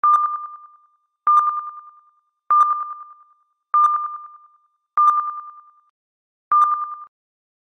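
Sonar ping sound effect repeating six times, about one ping every second and a quarter. Each ping is a single high tone that starts sharply and fades in quick fluttering echoes. The last ping is cut off short.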